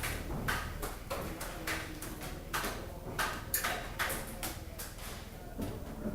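Airsoft fire in close quarters: sharp, irregular cracks and knocks, about two or three a second, from shots and BBs striking hard surfaces.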